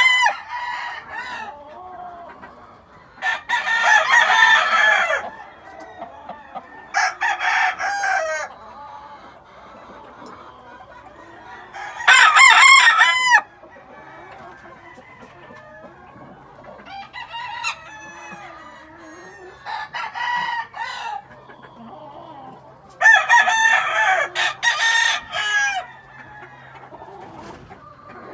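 Roundhead gamecocks crowing: about four loud crows spread through the stretch, each lasting a second or two, with quieter clucking and calls between them.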